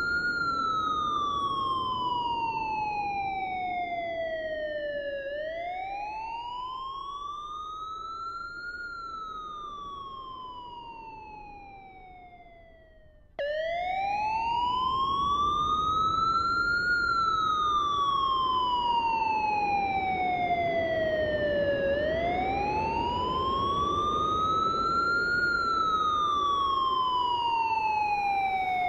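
Emergency vehicle siren on a slow wail: each cycle rises quickly and then falls slowly over about eight seconds, with a steady low rumble underneath. The siren fades away and then cuts back in abruptly at full strength about thirteen seconds in.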